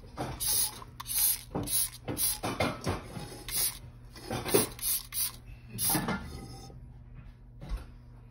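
Trigger spray bottle spraying cleaner into a stainless steel pot: about a dozen quick hissing squirts, roughly two a second, which stop about six seconds in.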